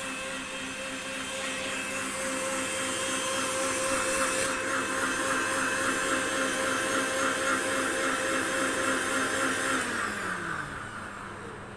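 An electric Sujata mixer-grinder runs at full speed, blending fruit juice with a steady high whine. About ten seconds in it is switched off, and the motor's pitch falls as it spins down.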